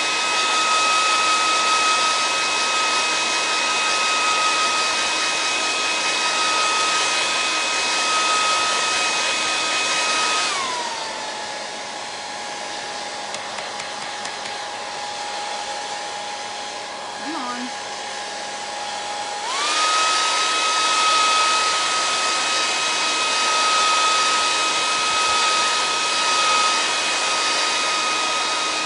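Handheld hair dryer blowing steadily with a motor whine, drying chalk paste. About ten seconds in its pitch glides down and it runs quieter at a lower speed, then rises back to full speed about twenty seconds in.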